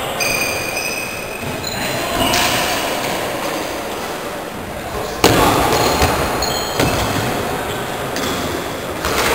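Sneakers squeaking on a wooden gym floor during an indoor floorball game: many short, high squeals at different pitches. A sharp knock comes about five seconds in, and a smaller one just under seven seconds in, from stick and ball play.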